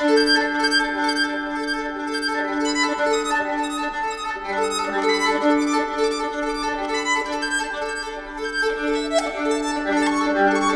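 Solo nyckelharpa, the Swedish keyed fiddle, bowed: a held low drone note under a quick melody of short, rapidly repeated bow strokes.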